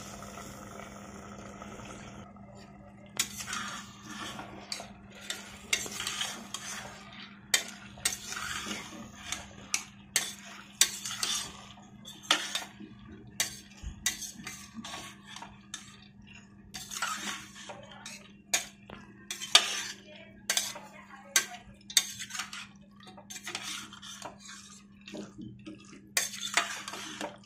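Metal spatula scraping and clinking against the inside of a stainless steel pressure cooker as black-eyed peas and potato cubes are stirred into thick masala. The strokes come irregularly, about one or two a second, starting a few seconds in after a faint steady hiss.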